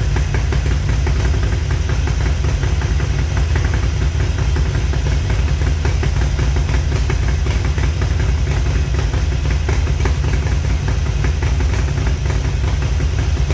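Harley-Davidson Sportster Iron 883's air-cooled V-twin engine idling steadily, with an even, low-pitched beat and no revving.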